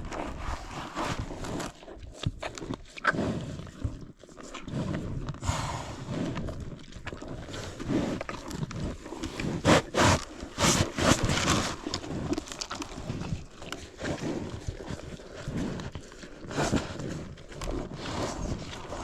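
Cattle moving about and feeding close by: irregular knocks, shuffling and rustling.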